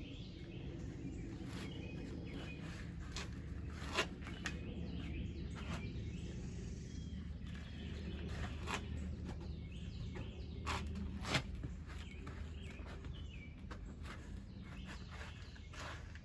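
Hands digging through loose soil in a potato grow container, a rustling scrape with a few sharp knocks, over a steady low background hum.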